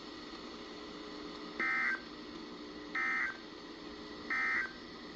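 Emergency Alert System SAME data bursts sent three times, about a second and a half apart: the short, harsh digital warble of the end-of-message code that closes the alert. A faint steady hum and hiss from the broadcast carrier run under it.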